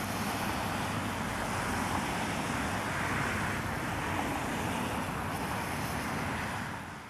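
Steady rushing noise of road traffic on a rain-wet road, with wind on the microphone, fading out at the end.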